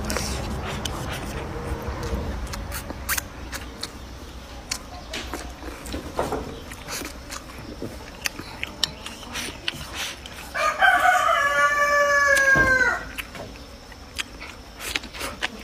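A rooster crows once about ten and a half seconds in: a single drawn-out call of a little over two seconds that drops in pitch at its end. Around it are scattered soft clicks and chewing noises of eating.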